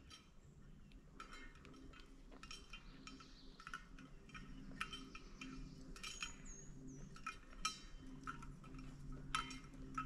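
Faint, irregular clicks and crunches of steps on a dirt and gravel trail.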